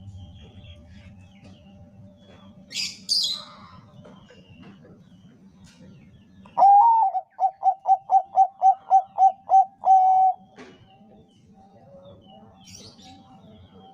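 Zebra dove (perkutut bangkok) singing one song phrase, about four seconds long, starting about six and a half seconds in: a longer opening coo, a quick even run of about a dozen short staccato coos, and a longer closing coo.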